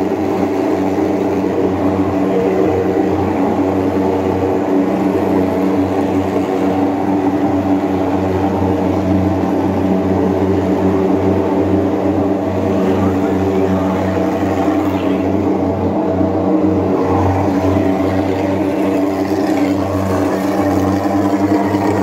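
Twin-barrel thermal fogging machine running, a steady loud engine drone with no change in pitch while it pours out insecticide fog.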